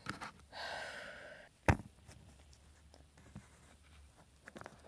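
A breathy sigh lasting about a second, followed by a single sharp knock, then faint small handling clicks.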